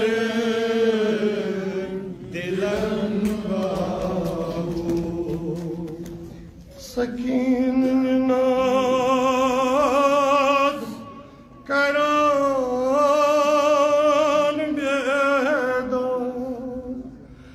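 A man's voice chanting a Kashmiri nauha, a Shia lament, in long drawn-out phrases with a wavering vibrato. He pauses for breath about seven and about eleven seconds in.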